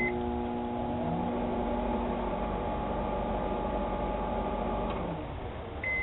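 Microwave oven beeps as it is started, then runs with a steady electrical hum for about five seconds, winding down and ending with another short beep.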